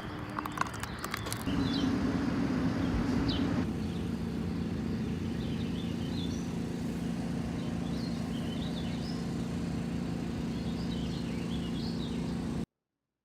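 Small birds chirping now and then over a steady low hum, with a few clicks early on; the sound cuts off abruptly near the end.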